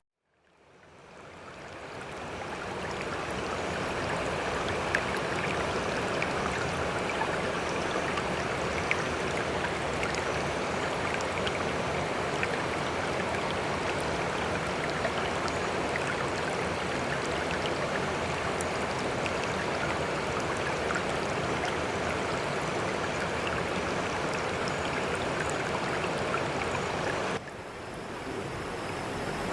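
Running water of a stream, a steady rushing with faint scattered ticks, fading in over the first few seconds. Near the end it drops suddenly and then swells back.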